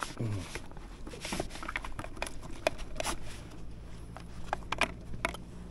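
Irregular light clicks and knocks of fishing gear being handled in a small boat. A low steady hum comes in about two-thirds of the way through.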